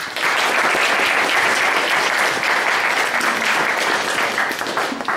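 Audience applauding, starting just after the close of a speech and dying away near the end.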